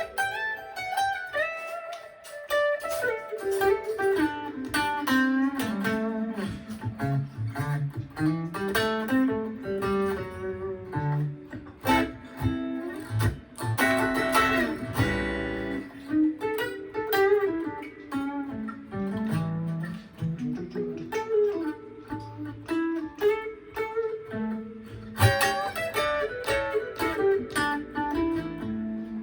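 Gibson ES-335 semi-hollow electric guitar being played: mostly single-note lead lines, some of them bent, with a strummed chord about halfway through.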